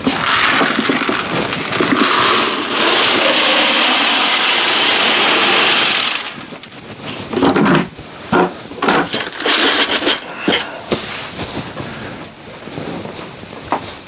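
Pelleted chicken feed poured from a plastic bucket into a plastic 5-gallon bucket feeder: a loud, steady rushing of pellets for about six seconds that stops abruptly. Scattered knocks and rustles follow as the feed settles and the bucket is handled.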